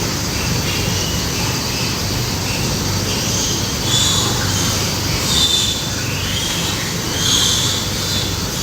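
Pigs squealing in high-pitched bursts, about three times, over a steady background noise.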